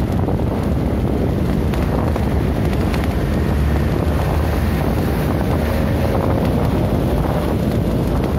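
Steady low wind rumble on the microphone of a moving vehicle, mixed with engine and road noise from traffic passing close by.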